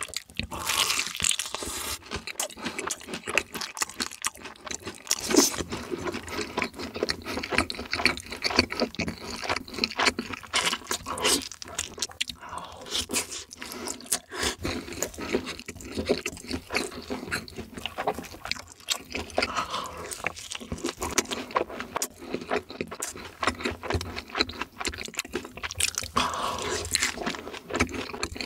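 Close-miked eating: crunching bites and chewing of fried chicken, some of it dipped in cheese sauce, with many small sharp crackles.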